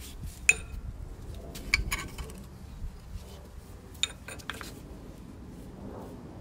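Sharp metallic clinks and taps: one about half a second in, a short cluster near two seconds, and two more around four seconds. They come from the metal bracket and bearing of a driveshaft center bearing assembly knocking against the shaft as it is handled in a vise.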